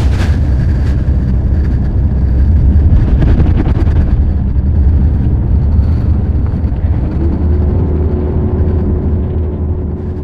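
Steady low rumble of a coach bus on the road, heard from inside the passenger cabin. A faint steady hum joins in about seven seconds in.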